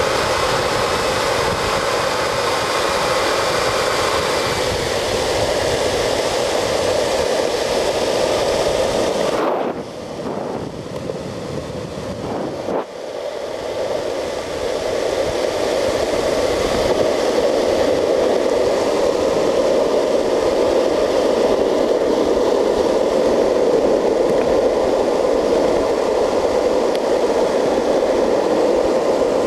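Longboard wheels rolling fast on asphalt, with wind rushing over the microphone: a steady rushing noise with a hum in it. It drops for a few seconds about ten seconds in, then comes back.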